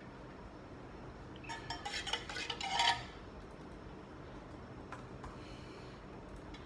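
Metal cutlery clinking against tableware: a quick cluster of small clinks starting about one and a half seconds in, ending with a louder ringing clink near three seconds. A faint steady hum lies underneath.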